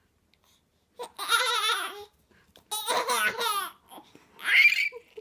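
A baby laughing in three high-pitched, gleeful bursts while a German Shepherd nuzzles it.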